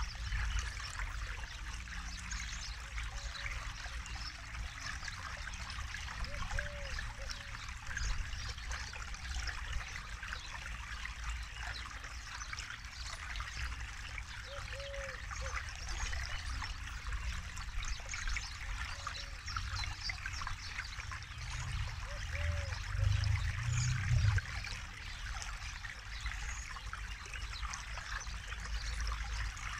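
Forest river flowing and trickling over stones, a steady rushing hiss with a low rumble beneath it. A faint short low call recurs every few seconds, and the low rumble swells briefly about three quarters of the way through.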